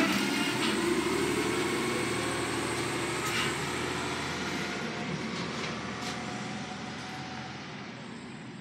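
Garbage truck driving off: its engine rises steadily in pitch as it speeds up and grows fainter as it moves away. A couple of sharp knocks from the truck come partway through.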